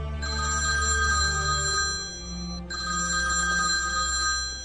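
A telephone ringing with an electronic ring of steady high tones: two long rings with a short break between, over soft background music.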